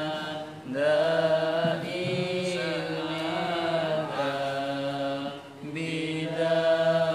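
Slow Arabic chanting of a shalawat, the blessing on the Prophet: 'ṣalātan dā'imatan bidawāmi mulkillāh', sung in long drawn-out melodic notes with short breaths between phrases.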